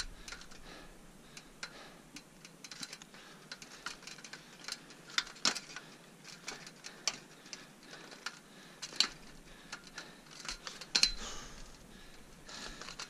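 Irregular sharp metallic clicks and clinks of a climber's crampons on the rungs of an aluminium ladder and the carabiners hanging from his harness, as he steps across a crevasse.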